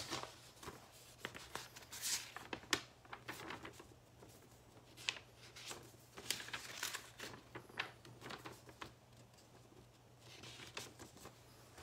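Faint, irregular rustling and light clicks of something being handled, over a steady low hum.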